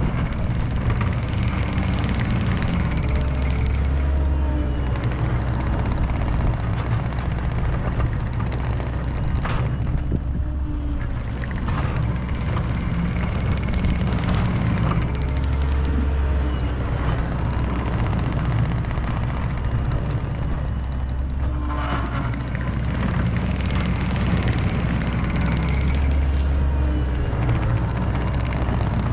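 Diesel engine of a skid steer working, its pitch and load rising and falling in repeated swells as it revs.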